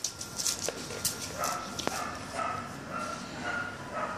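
Dog whimpering in a series of short, high whines, about two a second, with a couple of sharp clicks before them.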